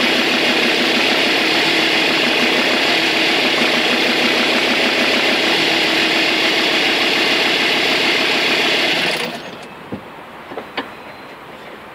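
Alfa Romeo 156 2.4 JTD 10V five-cylinder diesel idling with a steady whine from the auxiliary belt area, cause not yet found. The engine stops about nine seconds in, followed by a few light clicks.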